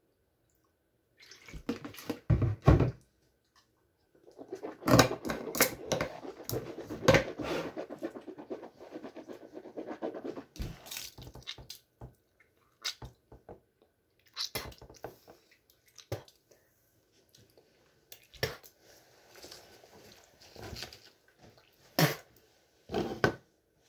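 Mouthwash swished around the mouth for several seconds, then spat into a bathroom sink, with a couple of thuds about two seconds in and scattered clicks and rustles afterwards.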